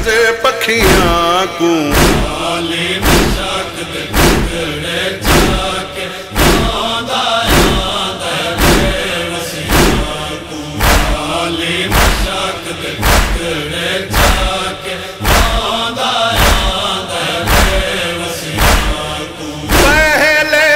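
Noha recitation: male voices chanting a mourning lament in chorus, with a steady thump of chest-beating (matam) about once a second.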